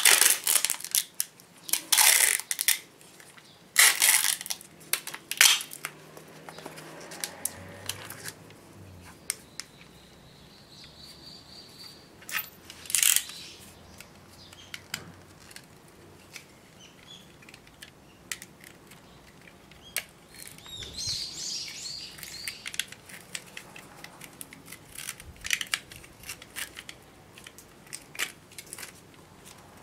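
Vinyl tape being pulled off its roll in several short, loud rips, mostly in the first few seconds and once more near the middle, then crinkling and handling noise as the tape is wrapped around a part.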